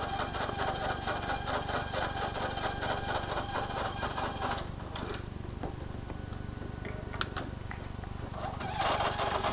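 Cartoon soundtrack from a VHS tape playing through an old CRT television's speaker. It is busy and fairly even at first, drops quieter about four and a half seconds in with a couple of sharp clicks, and picks up again near the end.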